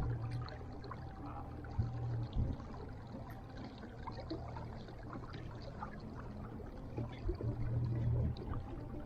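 Water trickling and lapping against a small boat, with scattered small ticks and a low rumble that swells near the start and again towards the end.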